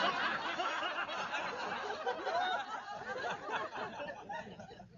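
Audience laughter from many people at once, slowly dying away and fading out just before the end.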